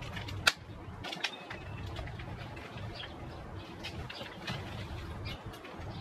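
Scattered clicks and knocks of things being handled and moved, the sharpest about half a second in and a small cluster about a second in, over a low steady rumble.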